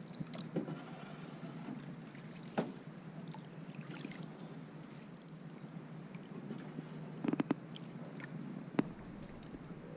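Small boat being paddled on the water, with a few sharp knocks, once about a third of the way in and a quick cluster near the end, over a steady low hum.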